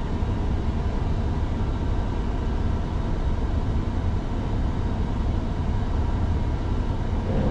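Diesel engine of a triple road-train prime mover idling, a steady low rumble with a hiss over it, heard from inside the cab; the note changes slightly near the end.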